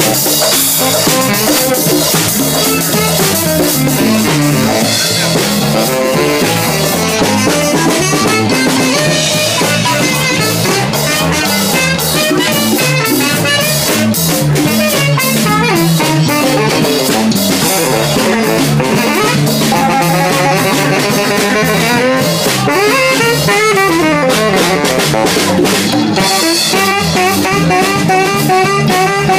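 Live band playing: a drum kit keeps a steady beat under guitar, and a saxophone plays melodic lines with sliding notes in the second half.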